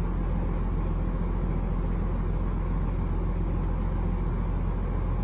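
An engine idling steadily: a low rumble with a constant hum.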